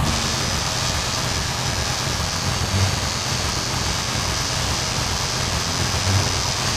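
Electric tattoo machine buzzing steadily as it works ink into skin, over a constant hiss.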